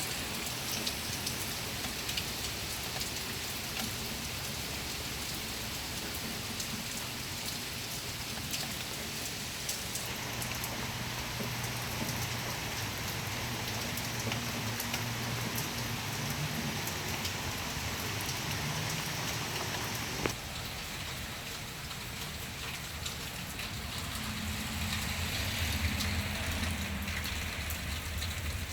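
Steady rain falling and pattering on surfaces, with many small drop ticks. A low rumble swells for a few seconds near the end.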